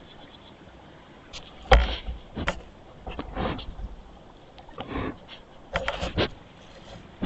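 A black bear nosing and rubbing its fur against a trail camera: irregular bumps and scrapes on the camera body. The loudest is a thump just under two seconds in, and a quick cluster follows about six seconds in.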